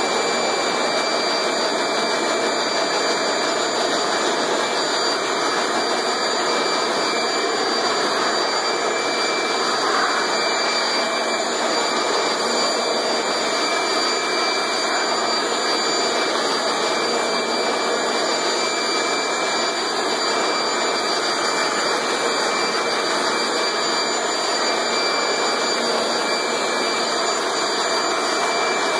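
Leaf blower running steadily: a loud, even rush of air with a steady high whine over it.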